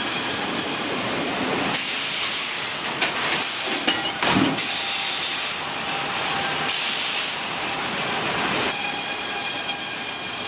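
Large sawmill machinery running: a loud, steady rushing noise with a faint high whine, changing abruptly several times.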